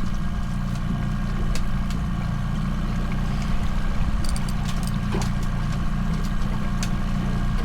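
Boat engine running steadily at trolling speed, with a few faint light ticks scattered over it.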